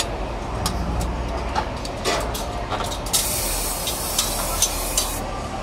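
An aerosol spray can of dye-penetrant test chemical hisses in one burst of about two seconds, starting about three seconds in. Underneath there is a steady low rumble and scattered light clicks.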